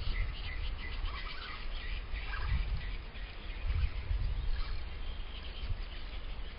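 Outdoor ambience: wind rumbling on the microphone, with birds chirping in the background.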